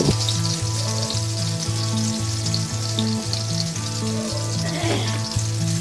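Pork cubes, garlic and onions sizzling in hot oil in a wok, a steady hiss, under background music with a repeating low beat.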